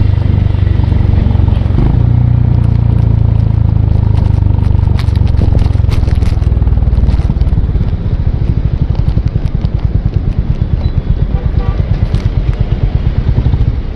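Honda CB350 RS's single-cylinder engine running. About eight seconds in, its exhaust note settles into separate, evenly spaced pulses. A few light clicks sound around the middle.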